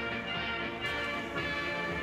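Background music with held, steady tones and no beat.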